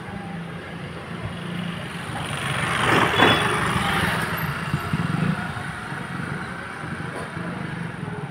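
Motor scooter passing close by on a street, its engine and tyre noise swelling to a peak about three seconds in and then fading, over a steady low hum.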